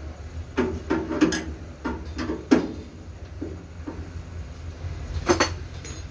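A series of sharp, irregular metallic clanks and knocks, loudest about half a second in, around two and a half seconds in and near the end, over a steady low hum.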